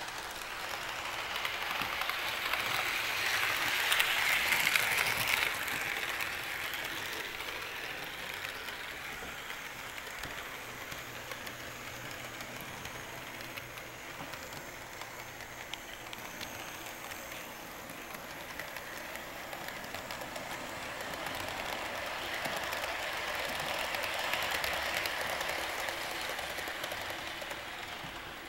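HO scale model train, a motorized hyrail truck pulling freight cars, rolling along the track with a steady rushing rattle of wheels on rails and fine clicks. It grows louder twice, a few seconds in and again near the end.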